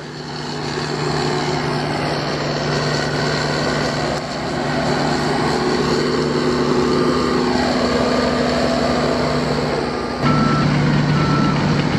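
Diesel engine of a single-drum vibratory roller running steadily while it compacts dirt, with its reversing alarm beeping in a repeating pattern from about nine seconds in, as the engine gets louder. The onlooker thinks, without being sure, that something is wrong with the machine.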